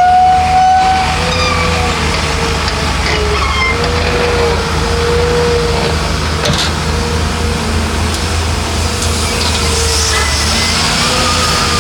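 Heavy diesel earthmoving machinery running steadily, a constant low engine drone with a wavering higher whine over it.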